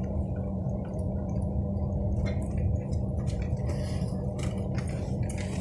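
Steady low rumble of a car rolling slowly over a dirt road, heard from inside, with scattered light ticks.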